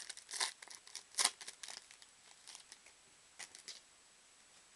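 Wrapper of a football trading card pack being torn and peeled open by hand: a quick run of crinkles and rips, the loudest about a second in, then a few softer crinkles about three and a half seconds in.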